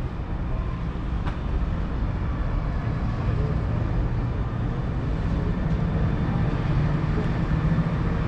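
Case IH Optum 340's 6.7-litre six-cylinder diesel engine running steadily with a low, even hum.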